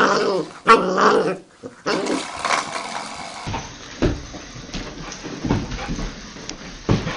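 A white puppy growling and whining in short rising and falling cries, with a brief pause between them. Then a dog gives quieter scattered knocks and scuffs as it noses and paws a small object across a wooden floor.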